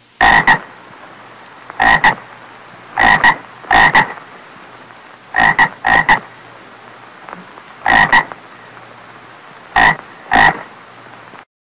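Frog croaking: short calls, mostly in quick pairs, repeating every second or two.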